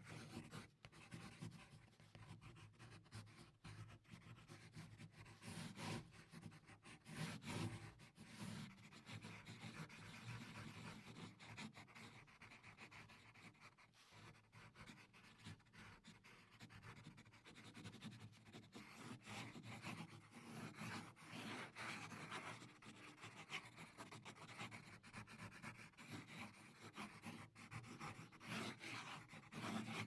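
Pencil drawing on paper: faint, continuous scratching of graphite across the paper in uneven strokes, with a few louder strokes about six and seven seconds in and again near the end.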